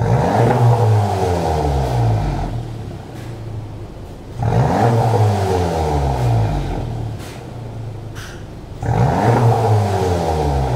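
Volkswagen Golf GTI Mk7's turbocharged 2.0-litre four-cylinder, through a Cende valved exhaust with the valves open, revved three times while standing: each blip jumps up sharply, then the note falls back to idle over about two seconds.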